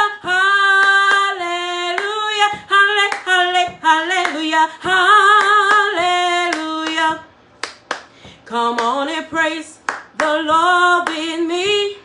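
A woman singing an unaccompanied gospel praise song, holding long wavering notes, and clapping her hands in time. About seven seconds in the singing breaks off for a moment while a few claps carry on, then she sings again.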